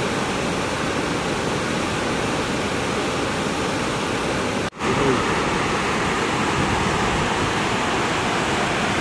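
Steady rushing of a rocky mountain stream, cutting out for an instant a little before halfway and then going on as before.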